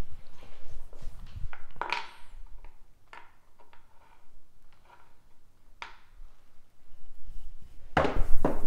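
Scattered light clicks of craps dice being handled and set. Near the end, a pair of dice is thrown down the felt table and knocks against its studded back wall.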